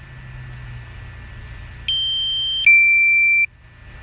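Two-tone electronic warning alarm from the drone's remote controller: a high beep steps straight down to a lower one, each under a second long, starting about two seconds in over a steady low hum.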